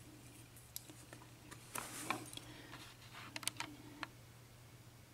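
Faint, scattered light clicks and taps of small metal parts being handled on an opened lock cylinder, a few at a time with pauses between.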